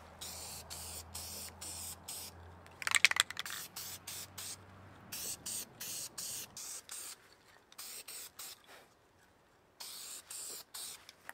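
Aerosol can of high-temperature engine paint spraying in many short hissing bursts, with brief gaps between them.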